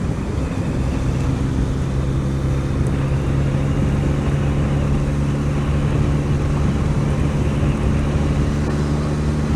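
Motorcycle engine running at a steady cruise, its hum holding one even pitch, with road and wind noise underneath.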